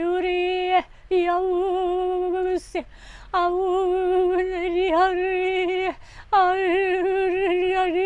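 A woman's voice groaning in wordless charismatic prayer ('groaning in the Spirit'): four long held groans on one steady pitch, with short breaks for breath between them.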